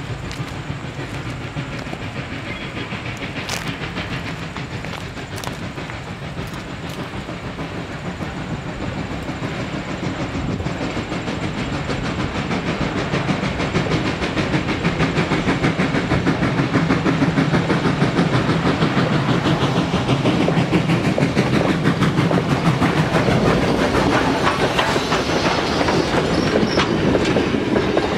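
Reading & Northern 425, a 4-6-2 Pacific steam locomotive, running light without a train. It grows steadily louder as it approaches, is loudest for several seconds past the middle, and eases a little near the end.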